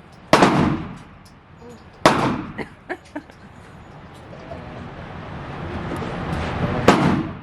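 Three handgun shots at uneven intervals, each sharp and loud with a short echo trailing off after it.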